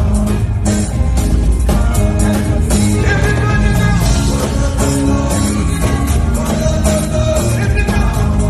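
Live afrobeat music at a concert: singing over a heavy bass beat with held melodic lines.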